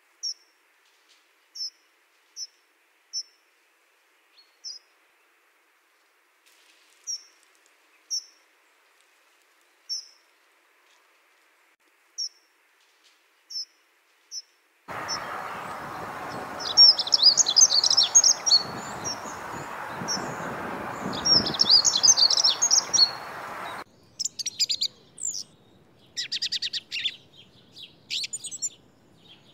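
Dunnock giving single thin, high calls every second or so. About halfway through, over a steady background noise, comes a dunnock's song: two short, fast warbling phrases. Near the end a song thrush sings loud, varied phrases.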